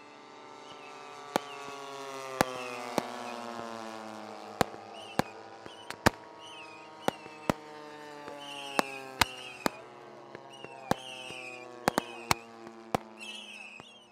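Sharp firework bangs going off irregularly, about one or two a second, over the steady drone of a radio-controlled model airplane's engine, whose pitch falls as it passes. A short high chirp repeats in the background.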